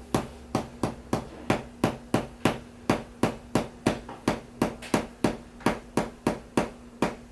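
Steady, evenly paced tapping, about three sharp knocks a second, from a chiropractor's percussive tapping on the patient's body.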